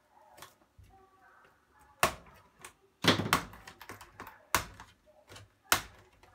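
Sharp plastic clicks and snaps, about half a dozen spread out, with a quick cluster about three seconds in: the clips of a Toshiba Satellite L500 laptop's plastic keyboard cover strip popping loose as it is pried off.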